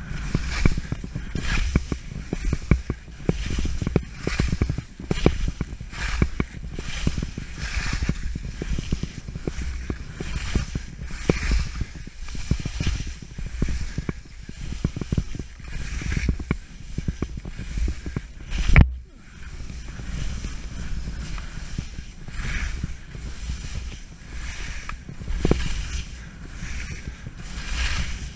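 Skis swishing and scraping through soft, chopped-up snow in quick turns, about one a second, over a low wind rumble on the camera's microphone. A single sharp knock about two-thirds of the way through.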